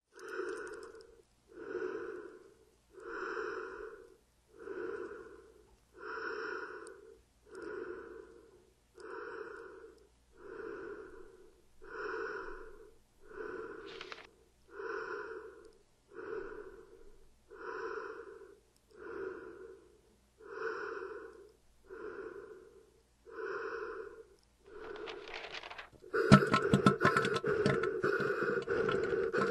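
Slow, heavy rhythmic breathing through a mask, about one breath every second and a half. A little before the end it gives way to a much louder, long, rasping noise.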